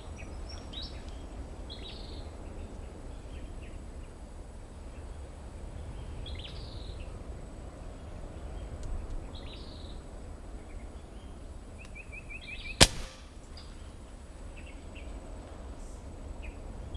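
A single sharp snap of a speargun being fired, about thirteen seconds in and by far the loudest sound. Before it, short high bird chirps come every couple of seconds over a steady low outdoor background.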